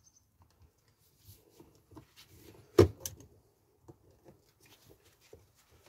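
Faint clicks and handling noises from hand tools working on a car door mirror's fold mechanism, with one sharp knock about three seconds in.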